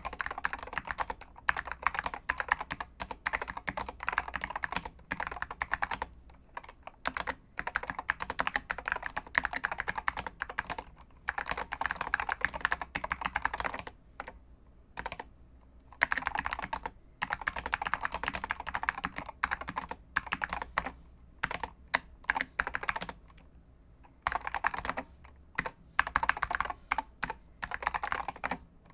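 Typing on a computer keyboard: quick runs of clattering keystrokes lasting several seconds each, with brief pauses between runs.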